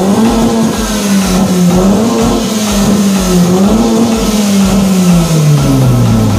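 Modified car's engine revved and held high, its pitch wavering up and down, then slowly dropping back toward idle near the end.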